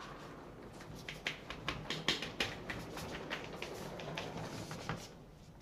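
Footsteps and a wheeled suitcase being pulled across a tiled floor: a run of irregular clicks and knocks over a light rolling rumble that stops about five seconds in.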